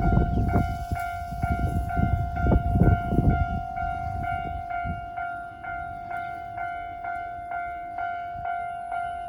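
Japanese level-crossing warning bell ringing its standard electronic ding, about two strokes a second. The newly replaced signal still gives this standard tone because it is wired to the old control box. A train rumbles over the crossing for the first three seconds or so, then fades, leaving the bell on its own.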